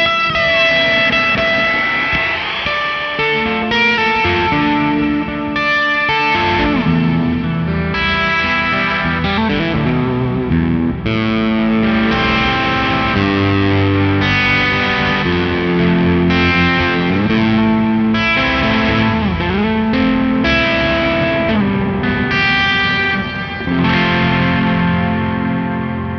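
Electric guitar played through an EarthQuaker Devices Astral Destiny octave reverb pedal: picked notes and chords with long washing reverb tails and swooping pitch bends, over a little overdrive.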